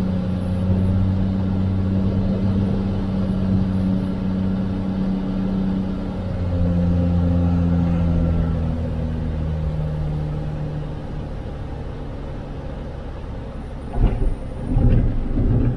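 Cirrus SR22's six-cylinder Continental engine and propeller running at low power, heard from inside the cockpit during the landing. Its pitch drops about six seconds in and keeps sinking as the power comes back for touchdown and rollout. A few sharp thumps come near the end.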